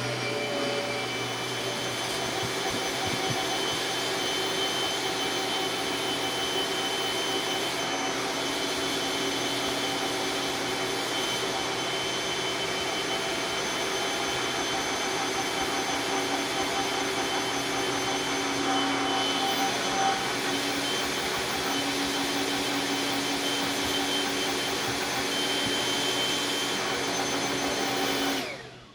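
Kirby vacuum cleaner running steadily while vacuuming a mattress: a rushing air noise with a steady motor whine. It is switched off near the end and winds down.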